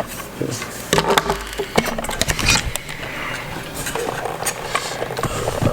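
Irregular small clicks, taps and short scrapes of tools and parts being handled while an iPhone 5 is taken apart.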